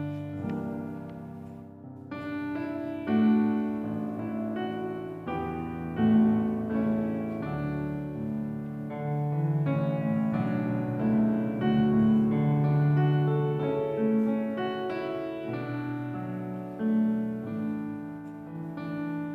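Solo piano playing a slow, gentle piece, one sustained note or chord after another.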